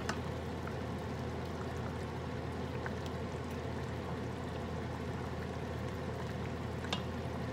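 Pot of sinigang broth with vegetables simmering while being stirred with a wooden spoon: a steady liquid bubbling and swishing, with a light click at the start and another near the end.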